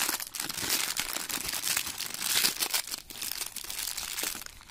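Clear plastic packaging bag crinkling steadily as it is pulled and unwrapped by hand from a new fan regulator.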